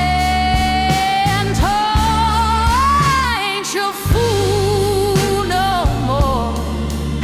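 Slow soul-blues ballad: a voice holds long notes with vibrato over a steady bass line and drums.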